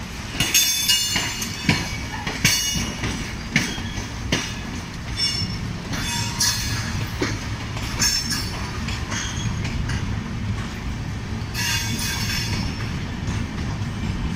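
Passenger train running at speed, heard from its open coach door: a steady rumble of the wheels on the track with clickety-clack at rail joints, and repeated short high-pitched wheel squeals, the longest about twelve seconds in.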